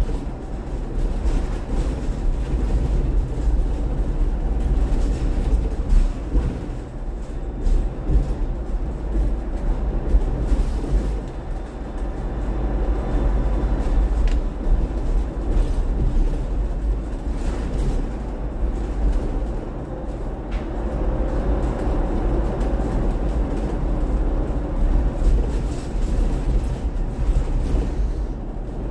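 Upper-deck cabin of a battery-electric Volvo BZL double-decker bus on the move: steady low road rumble with a faint electric-drive whine, and a few short knocks and rattles from the body.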